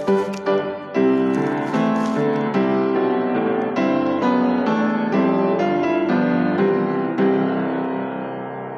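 Background piano music: quick repeated notes for about the first second, then slower, longer-held chords that fade away near the end.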